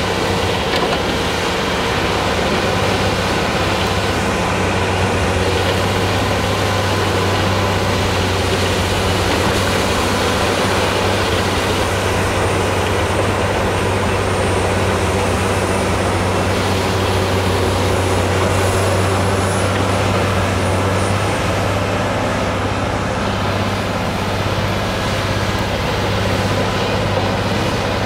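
Heavy diesel machinery running steadily under load: a Volvo L110H wheel loader driving an Øveraasen UPV450 rotary snow blower with its own roughly 450 hp engine, a loud, even drone with a strong low hum.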